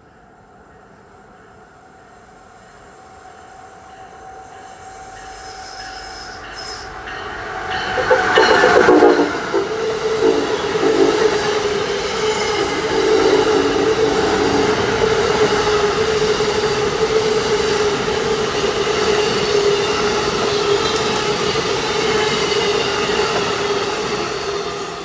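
Amtrak Northeast Regional passenger train approaching and passing at speed. The rumble builds for several seconds and peaks about eight seconds in as the locomotive goes by, then the coaches roll past with a steady high tone, easing off near the end.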